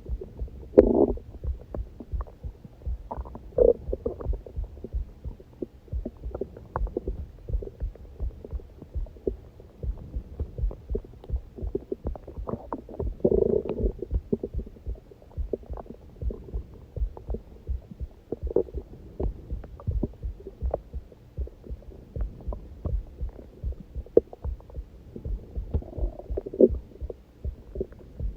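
A human heartbeat thumping steadily, with a hungry stomach growling over it several times; the longest and loudest gurgling growl comes about halfway through.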